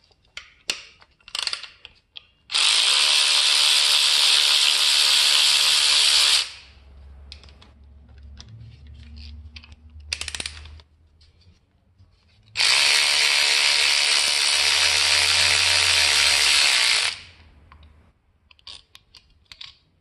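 Cordless electric ratchet running in two steady bursts of about four seconds each as it backs out the two 8 mm bolts holding a timing chain guide. Small clicks and taps from handling the tool and parts come between the runs.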